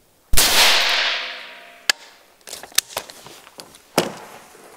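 One .308 rifle shot (168-grain hollow-point boat-tail round), a sharp crack about a third of a second in with a long echoing decay, fired at a 6 mm Hardox 500 steel plate. A few small sharp clicks follow near the end.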